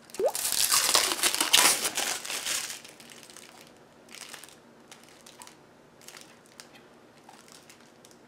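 Packaging crinkling and rustling as it is handled, loudest over the first three seconds, then a few fainter rustles and light clicks.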